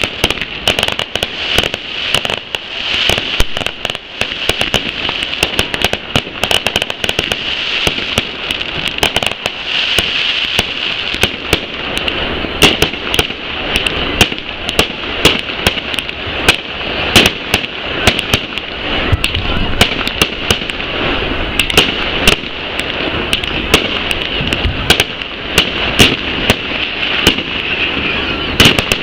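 Fireworks display: aerial shells bursting overhead in a continuous barrage of bangs and crackles, with sharper, louder reports through the second half.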